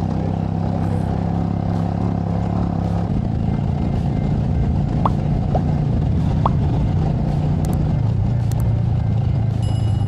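Motorcycle engine running steadily while riding, under heavy wind and road noise; the engine note shifts about three seconds in.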